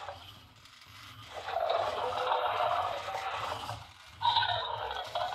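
Zoomer Indominus Rex robot toy playing roar sound effects through its small built-in speaker, as it does in its angry mode. There are two roars: one of about two seconds starting a second in, and a second one starting about four seconds in.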